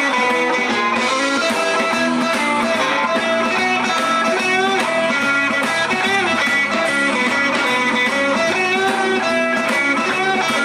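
A live blues band playing an instrumental passage, led by electric guitar.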